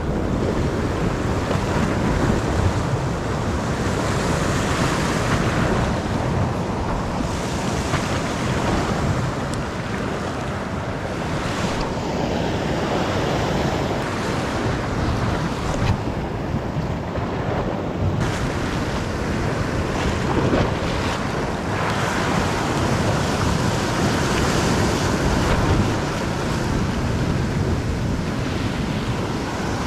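Ocean surf surging and washing over a sea-level rock ledge, swelling and easing every few seconds as waves break, with wind buffeting the microphone.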